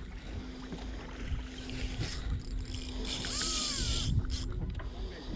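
A boat's motor running with a steady hum, under low rumble and the wash of wind and water. A burst of hiss comes about three seconds in.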